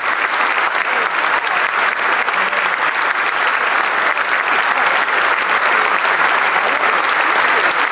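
Audience applauding steadily after a performance: dense, even clapping with no break.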